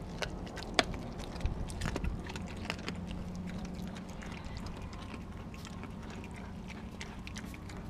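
A dog chewing raw chicken close to the microphone: a run of crunches and wet clicks, densest in the first few seconds and then sparser.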